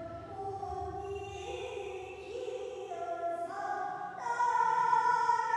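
A woman singing in the style of a Korean traditional sorikkun, with long held notes that step upward in pitch and grow louder about four seconds in.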